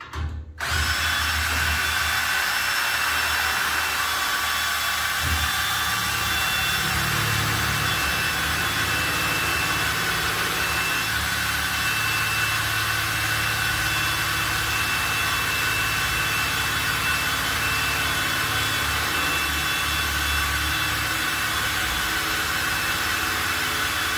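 Cordless drill running steadily under load with a constant whine, driving the motorcycle loading ramp's tilt mechanism as the ramp lowers. It starts about half a second in.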